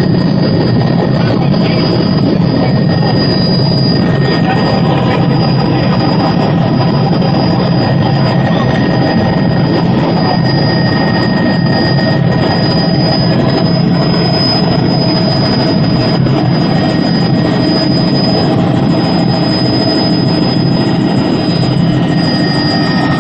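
Tour helicopter in flight: the steady, loud drone of its engine and rotor, with a constant high-pitched whine over it.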